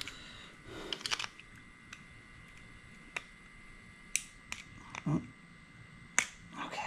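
Scattered sharp clicks and light taps of small carburetor parts and hand tools being handled during disassembly, with one duller knock about five seconds in.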